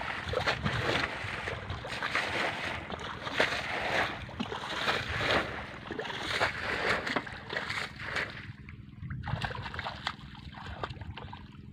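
Outdoor wind and rippling water: a steady rushing with many small irregular crackles, which thins out sharply about eight and a half seconds in, leaving a faint low rumble.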